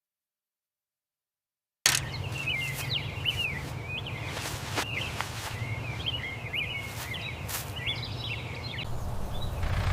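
Silence for about two seconds, then outdoor ambience: birds chirping in short repeated calls over a steady low rumble, with a few sharp clicks.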